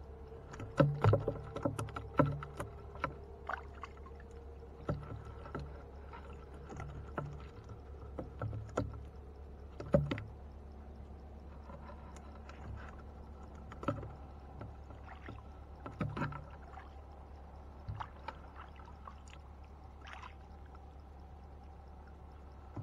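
Irregular knocks and taps in a wooden boat as a gill net is hauled in by hand and fish are picked from it, the loudest about a second in and around ten seconds, over a steady low hum.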